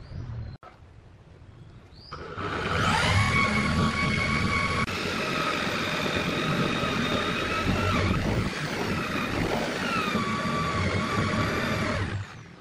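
Cordless drill with a Forstner bit boring into wood: the motor whines up to speed about two seconds in, runs steadily with its pitch dipping briefly a couple of times under load, and stops suddenly near the end.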